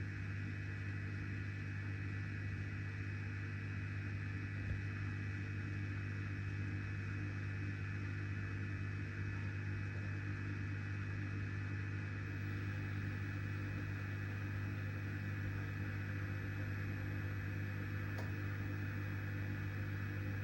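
Miele dishwasher running at the start of its wash programme: a steady low electrical hum with a hiss on top, which cuts off suddenly at the very end.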